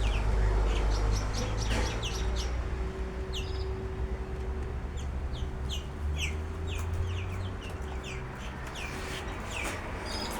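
Birds chirping: many short, down-slurred calls in quick, irregular succession, over a steady low rumble and hum.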